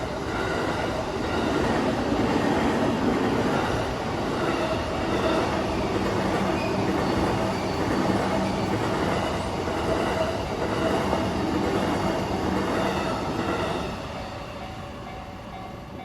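Electric passenger train passing over a level crossing, its wheels rumbling and clattering on the rails for about fourteen seconds before the sound drops away near the end. The crossing's warning bell keeps ringing in a steady repeating pattern beneath it.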